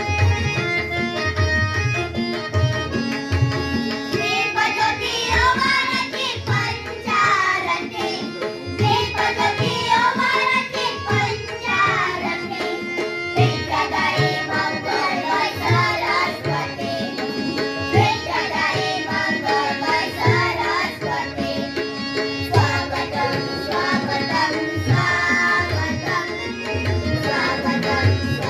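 Indian song with regular tabla strokes under sustained held instrumental notes; a voice starts singing a wavering melody about four seconds in and carries on over the drumming.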